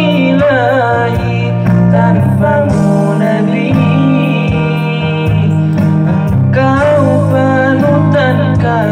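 Male voices singing a sholawat-style melody into microphones, the long notes ornamented and wavering in pitch, over a guitar playing chords.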